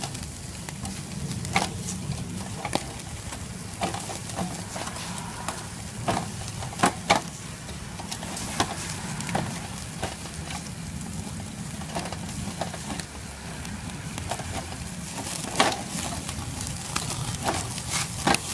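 Steak and bacon-wrapped brats sizzling over a charcoal fire, with fat crackling and popping at irregular moments; the loudest pops come about seven and fifteen seconds in.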